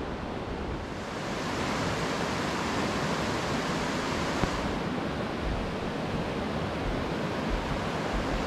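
Steady rush of a river's whitewater rapids.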